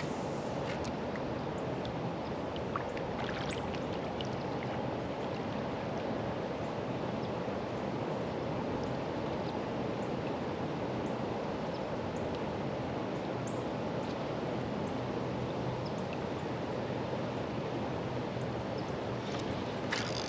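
Steady rush of flowing creek water, with a few faint clicks.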